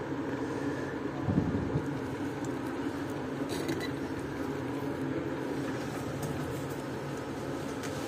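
Steady low background hum, with a soft knock just over a second in and a few faint clicks around three and a half seconds as a small circuit board is handled on a rubber mat.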